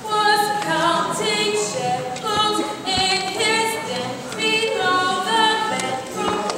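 A small group of female voices singing together, the melody moving through many held and changing notes.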